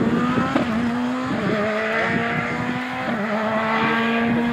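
Škoda Fabia S2000 rally car's engine running at high revs, its note holding a steady high pitch with a few brief dips.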